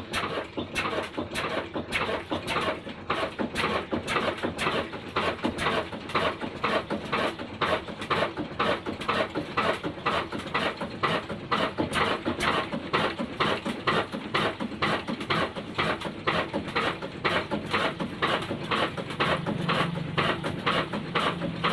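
Old Ruston Hornsby single-cylinder diesel engine chugging slowly with even, sharp exhaust beats about two to three a second. A steady low hum joins in near the end.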